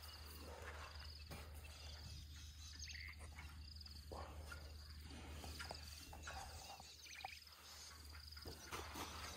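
Faint outdoor ambience of insects chirping in short high trills that repeat steadily, over a low steady hum, with a few soft clicks and rustles.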